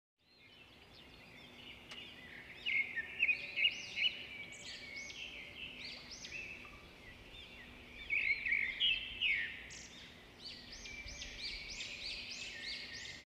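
Birds chirping and twittering in many quick rising-and-falling notes, louder in flurries, cutting off abruptly near the end.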